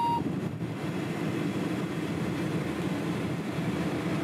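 Steady low rumble of a taxi's cabin on the move, engine and road noise heard from inside the car, opened by one short electronic beep.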